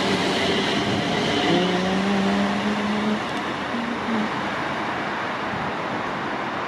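Class 350 Desiro electric multiple unit running on the line: steady rolling and running noise, with a held droning tone for a second and a half or so, about one and a half seconds in.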